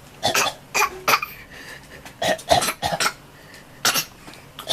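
A ten-month-old baby's little put-on coughs: short, breathy coughs coming in quick groups of two or three.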